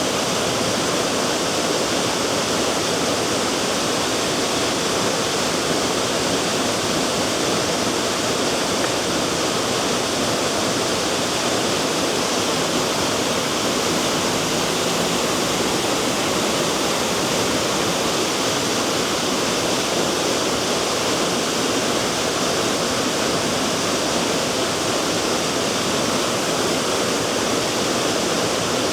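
Waterfall close up: a steady, loud roar of falling water, with spray reaching the microphone.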